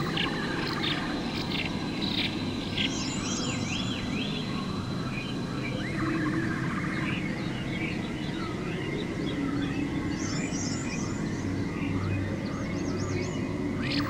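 Nature soundscape: several birds chirping and trilling over a steady low rush like a running creek, with a thin constant high whine like insects. The same bird phrases come round again near the end, as the recording loops.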